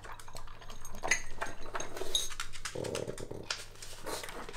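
Pug eating dry kibble from a ceramic bowl: crunching and chewing, with pieces clicking against the bowl in quick irregular taps, and a short breathy sound about three seconds in.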